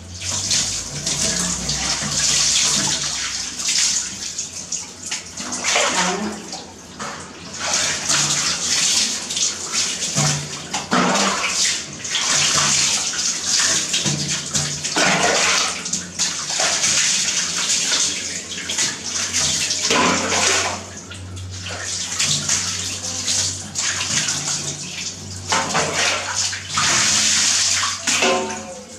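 Water poured from a plastic basin over a small monkey and splashing down, in a series of pours each a second or two long with short lulls between them.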